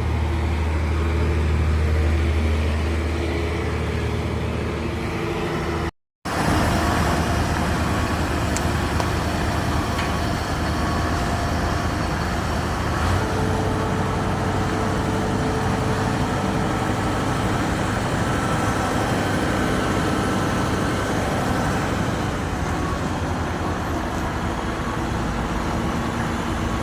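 Heavy diesel machinery running steadily. It starts with a deep engine hum, then about six seconds in there is a brief cut to a noisier stretch of machine running.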